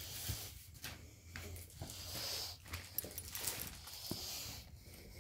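Handling noises: rustling with a few light clicks and knocks as a document and a cloth are picked up and moved about.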